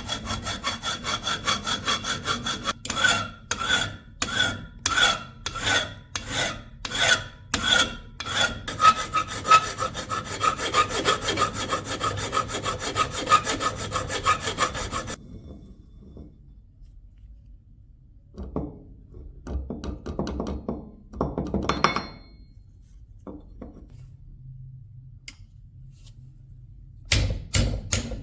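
Hand abrasive work on the rusty steel blade of an antique shashka sword. Back-and-forth rubbing strokes come at about two a second, then run on unbroken, with a steady ringing note held through them. The rubbing stops about halfway through, leaving a few short, quieter scrapes and a couple of sharp knocks near the end.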